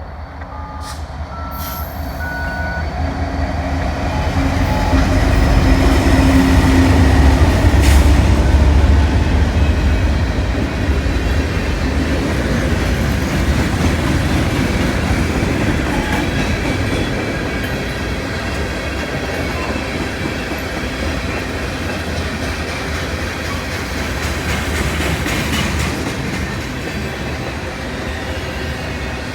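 CN diesel freight train passing: the locomotives' low engine rumble builds to a peak about six to nine seconds in, then the freight cars roll by with a steady rumble.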